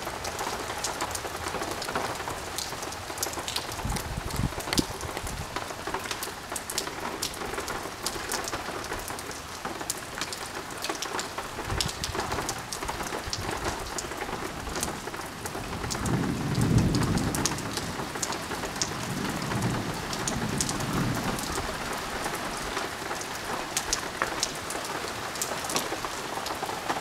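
Thunderstorm: steady heavy rain, with the sharp ticks of drops landing close by. A low rumble of thunder comes in about sixteen seconds in and dies away after about five seconds.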